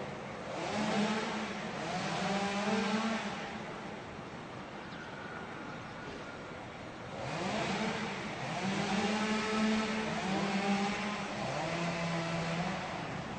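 Two-stroke chainsaw revving up and running hard, as when cutting a tree. It eases back to a lower, quieter running for a few seconds in the middle, then revs up sharply again and holds high before its pitch drops near the end.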